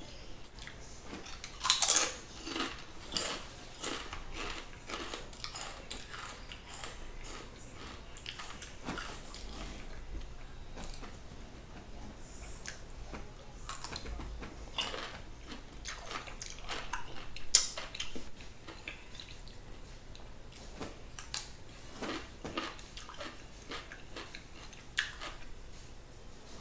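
Close-up sounds of a person biting into and chewing a vegan turkey club sandwich: irregular wet chewing and crunchy bites, with the loudest bites about 2 seconds in and again past the middle.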